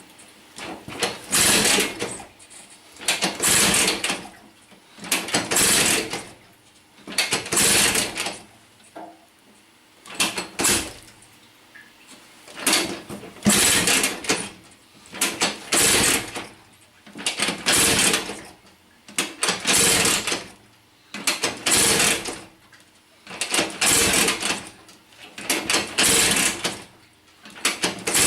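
A Vyatka Electron scooter's single-cylinder two-stroke engine is being kicked over again and again, about one kick every two seconds. Each kick gives a second-long mechanical clatter as the engine turns over without starting.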